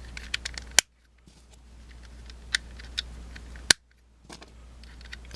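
Plastic tiles clicking and snapping into place on a Rubik's cube as they are pressed on, in scattered sharp clicks, two louder ones about a second in and near four seconds in.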